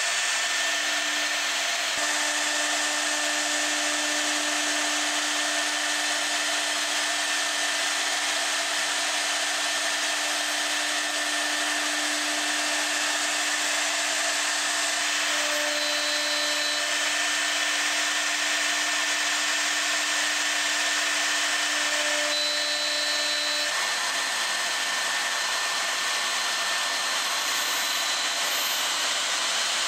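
Router motor on a sliding rail jig, fitted with a dovetail bit, running steadily at speed as it works along the edge of a wooden board. A steady low hum in the motor noise stops about three-quarters of the way through while the rush carries on.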